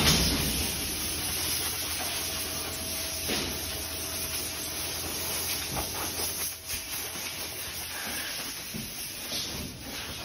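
Steady hiss of air with mechanical running noise from a pillow vacuum-packaging machine at work, with a faint steady tone through the middle.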